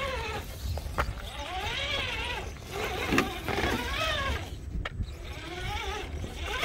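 A voice talking over a steady low rumble, with a few sharp clicks about a second, three seconds and five seconds in.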